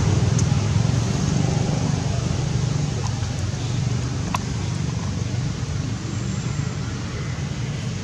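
Steady low rumbling background noise that eases off slowly, with one faint click about four seconds in.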